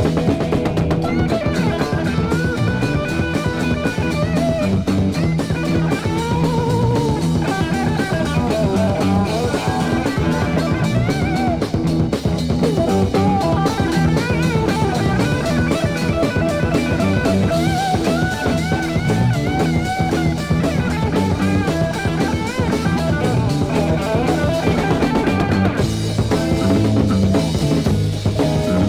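Instrumental passage of a 1973 heavy psychedelic rock record: winding guitar lines over a steady drum kit.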